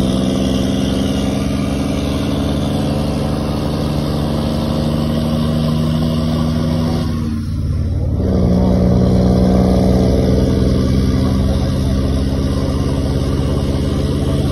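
Scania R 540 truck's 13-litre six-cylinder diesel running steadily through its exhaust as it pulls a loaded double tipper trailer. About seven seconds in the sound briefly dips, then it picks up again a little louder.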